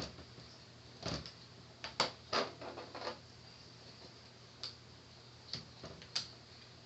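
Scattered small clicks and taps, a small Phillips screwdriver working the tiny screws on a laptop's plastic screen frame, with a cluster of quick clicks about two to three seconds in.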